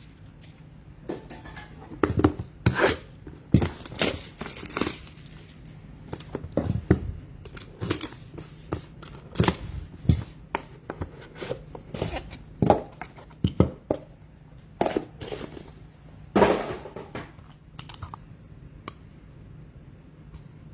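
Trading card packs being torn open and their wrappers crinkling, with cards handled in between: a string of short, irregular rustles and clicks, the loudest about 16 seconds in, over a faint low hum.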